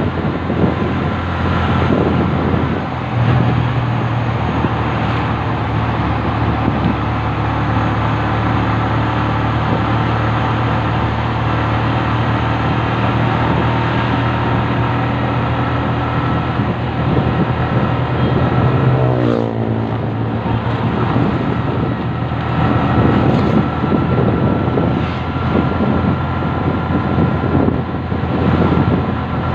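Motorcycle engine running at a steady cruising speed, with wind noise on the microphone. About two-thirds of the way through, the engine's pitch falls as it slows.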